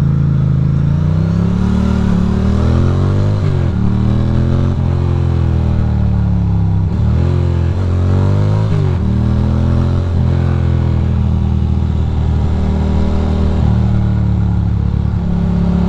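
Ducati Monster's V-twin engine accelerating through the gears: its pitch climbs and then drops at each upshift, about five times in the first ten seconds, before settling to a steadier pull near the end.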